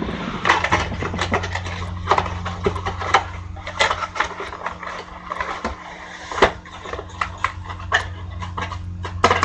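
Irregular sharp clicks and taps, several a second at times, over a steady low electrical hum.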